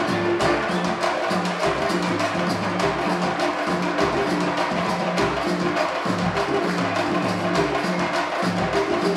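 Live percussion ensemble playing a steady, driving rhythm on large drums, with sharp wooden clicks over the beat.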